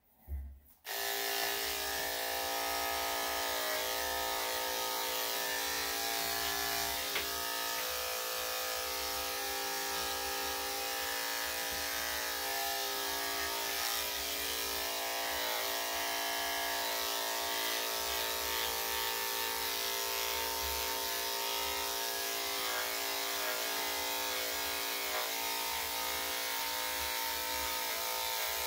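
Electric dog grooming clippers with a #10 blade start up just under a second in, then run with a steady buzz as they shave a dog's coat.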